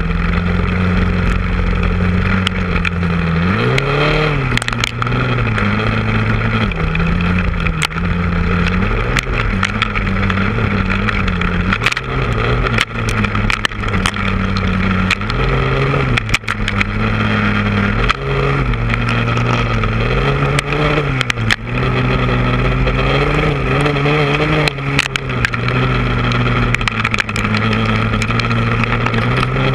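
Honda ATV engine running under way, its pitch rising and falling again and again as the throttle opens and closes. Sharp knocks are heard now and then over the engine.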